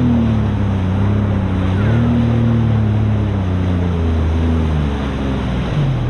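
Jet ski engine running under way, its pitch rising with throttle near the start and again about two seconds in, then easing off, over the hiss of water spray and wind.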